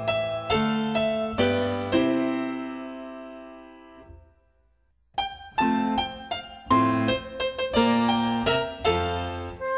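Piano music: a few chords struck and left to ring out, fading away to near silence about four seconds in; about a second later a new phrase of quicker notes begins.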